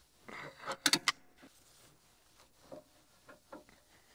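Hand tool tightening the bolts of a steel canopy bracket on a tractor's rollover bar: a short metallic rasp, then a few sharp clicks about a second in, and fainter clicks near the end.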